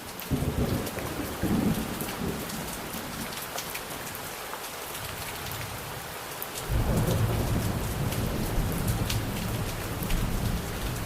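Steady heavy rain with pattering drops, and rolling thunder: a rumble in the first couple of seconds, then a louder one that sets in suddenly about two-thirds of the way through and keeps going.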